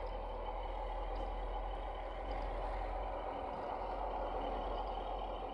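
Electric motor and geared drivetrain of a 1/10-scale RC rock crawler running steadily as the truck crawls slowly over dry, cracked mud, with a low hum underneath.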